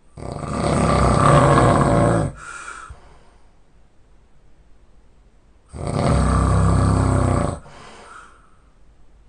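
A person snoring loudly: two long snoring breaths about five and a half seconds apart, each followed by a short, quieter breath.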